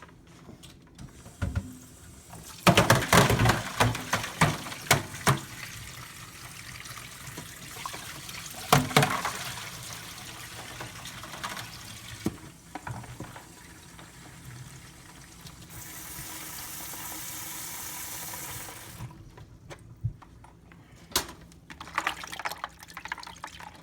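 Water splashing and sloshing as herring are swished and rinsed in a container of water at a sink. Then a tap runs steadily for several seconds, and a few knocks come near the end.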